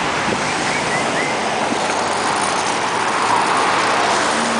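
A car driving along a street: steady road and tyre noise with a rushing hiss.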